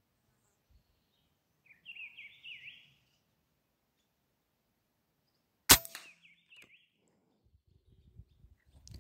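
A single rifle shot, one sudden sharp crack about halfway through and the loudest sound here. A bird calls with quick falling chirps a few seconds before the shot and again just after it.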